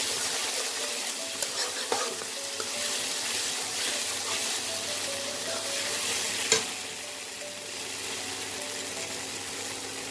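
Spice paste and ground spices sizzling in oil in a non-stick kadai while a spatula stirs and scrapes through it, with scattered small clicks of the spatula and one sharp knock about six and a half seconds in. The masala is being fried down until the oil separates.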